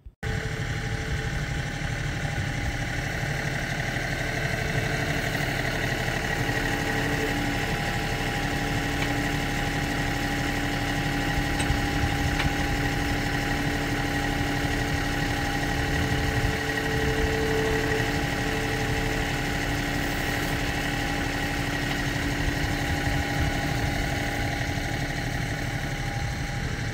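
Compact tractor's engine running at a steady idle.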